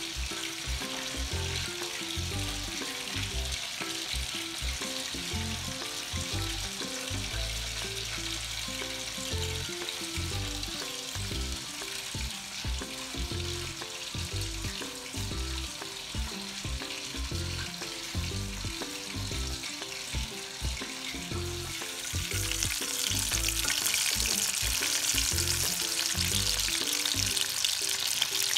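Background music plays throughout. About three-quarters of the way through, a hot-oil sizzle sets in and grows louder: breadcrumb-coated Indian anchovies deep-frying in a wok.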